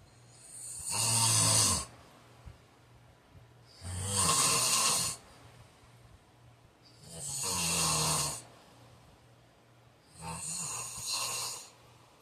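A man snoring in his sleep: four snores about three seconds apart, each lasting a little over a second, the last one softer.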